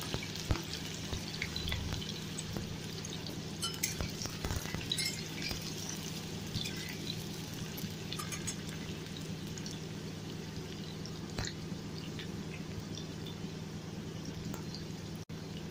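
Potato chunks frying in mustard oil in an aluminium kadai: a steady sizzle with scattered crackles, and a metal spatula now and then scraping and knocking against the pan, over a low steady hum.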